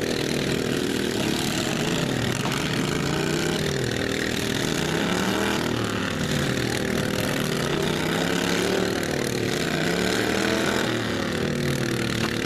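Several riding lawn mower engines running together, revving up and down so their pitches rise and fall and cross each other.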